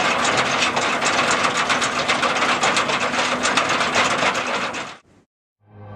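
A fast, dense mechanical clatter of many rapid clicks, which cuts off abruptly about five seconds in.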